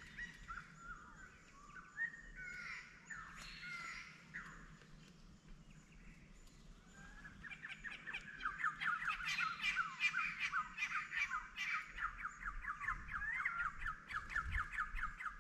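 Wild birds calling: scattered chirps at first, then from about eight seconds in a long rapid run of repeated notes that grows louder.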